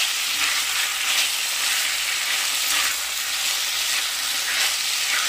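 Raw chicken pieces with onions sizzling in hot oil in an enamelled cast-iron pot, stirred with a silicone spatula. It is a steady sizzle with soft stirring sounds.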